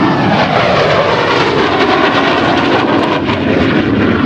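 Loud engine noise of a large aircraft, likely a jet, passing low and close in front of the crowd, a dense steady rushing sound.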